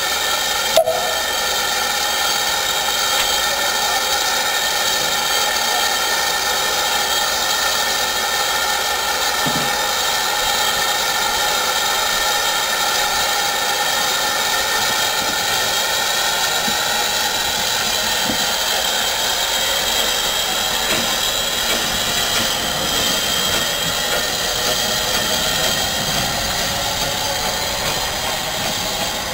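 Steady loud hiss of steam from a P class 0-6-0 steam tank engine, with one sharp click about a second in.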